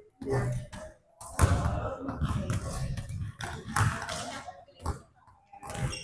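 Basketballs bouncing and thudding on a hardwood gym floor, irregular sharp knocks from shots and dribbling, with people talking in the background.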